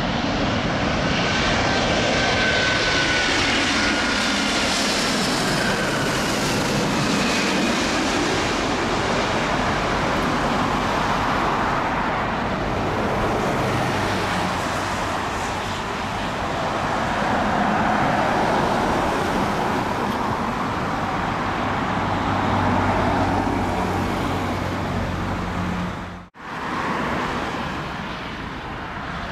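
Airbus A350's Rolls-Royce Trent XWB turbofans on final approach, passing low overhead: a loud jet roar with a whine that slides down in pitch as it goes by, swelling again as it moves away. About 26 seconds in the sound cuts to a steadier, quieter roar of a Boeing 777-300ER's GE90 engines on approach.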